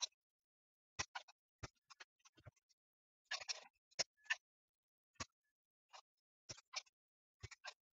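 Short, irregular clicks and scrapes from a soldering iron tip and a spring-loaded desoldering pump working on a circuit board's solder pads, as capacitors are desoldered.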